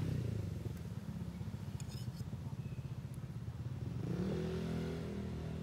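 A vehicle engine running close by with a steady low rumble of street traffic. There are a few light metal clinks about two seconds in, and a rising, pitched sound near the end.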